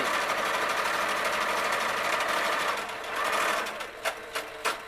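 Electric sewing machine running at speed with a steady, rapid stitching clatter, dipping briefly about three seconds in, then a few sharp clicks near the end.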